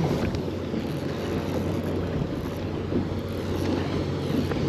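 Wind buffeting the microphone over choppy water slapping against a small boat's hull: a steady low rumble with a few faint knocks.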